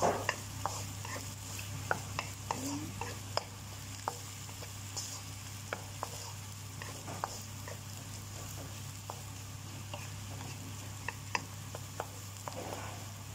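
Wooden spatula stirring and scraping egg and vegetables in a nonstick wok, with irregular clicks of the spatula against the pan over a soft frying sizzle and a steady low hum.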